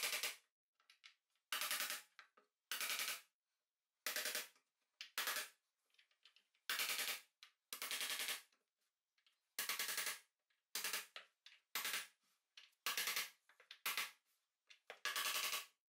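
Outro music in short, sharply cut bursts of a pitched chord, about half a second each, with silent gaps between them.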